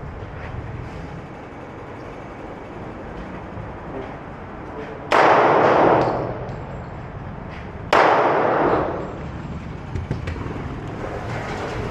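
Two gunshots on a shooting range, about three seconds apart, each cracking out suddenly and ringing on for about a second.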